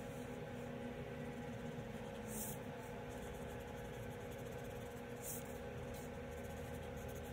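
Felt-tip marker rubbing across paper while colouring in, faint over a steady low hum, with two brief louder strokes about two and a half and five seconds in.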